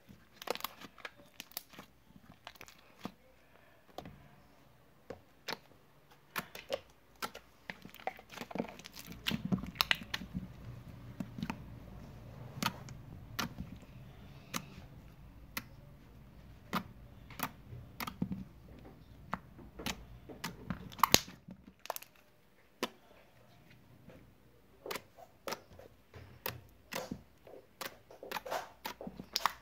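Slime being squeezed and stretched by hand, making irregular sticky clicks, pops and crackles, with a low hum underneath through the middle.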